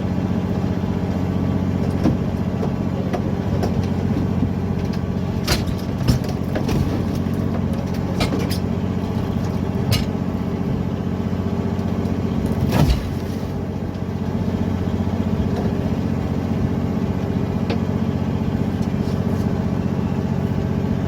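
Fishing boat's engine running with a steady drone. Scattered knocks and clicks sound over it, with a louder clatter about 13 seconds in.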